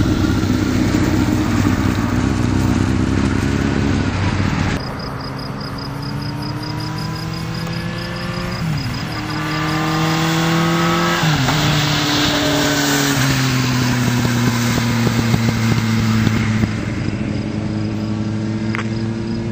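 Yamaha inline-four sport motorcycle with an Akrapovic slip-on exhaust, loud and close for the first few seconds until a cut. It then accelerates hard through the gears, the pitch rising and dropping sharply at two upshifts, before settling into a steady run whose pitch slowly falls.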